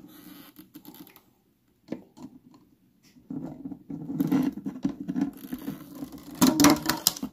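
Tongs scraping and clicking against a plastic deli cup lid as it is worked loose and lifted off. The scraping starts about three seconds in, and the sharpest plastic clicks come near the end.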